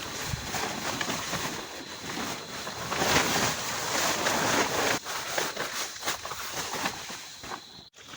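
Heavy rain falling, a dense hiss with many small pattering ticks; it swells louder for a second or so about three seconds in, then cuts out abruptly just before the end.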